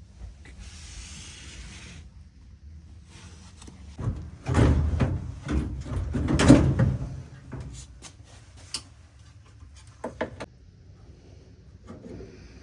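Dryer cabinet parts being handled during disassembly: a short hiss, then a loud run of knocks and scraping, and a few sharp clicks near the end.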